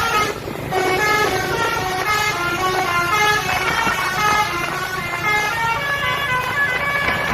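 A bus's basuri musical horn, the multi-trumpet telolet horn, playing a quick melody of stepped notes, several tones at once.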